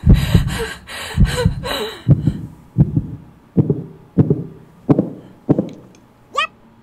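Edited-in heartbeat sound effect: about six low thumps, evenly spaced roughly two-thirds of a second apart, after a short musical sting. Near the end it is cut off by a brief rising tone.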